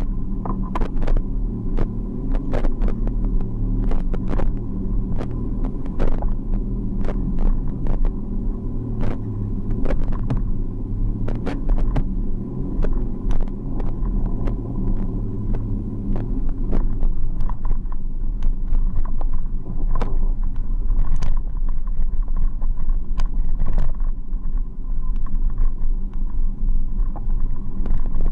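Steady low rumble of small wheels rolling over a concrete sidewalk, with frequent sharp clicks and knocks throughout.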